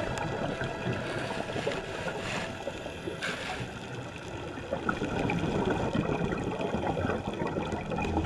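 Muffled underwater water noise with gurgling, as picked up by a camera inside an underwater housing, with a few brief louder washes about two and three seconds in.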